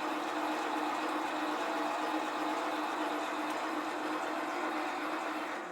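Sieg SC4 bench lathe motor and spindle running steadily with an even hum. It is switched off at the very end and winds down quickly.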